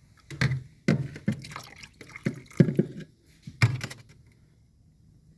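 Water splashing and dripping in a series of about six sudden strokes over the first four seconds, as a stick is worked into the fridge's defrost drain, which is blocked by frozen dirt and ice.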